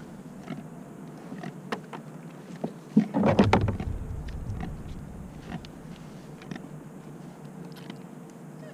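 Small scattered knocks and clicks of handling on a kayak, with one louder burst of noisy sound a little after three seconds in, lasting well under a second.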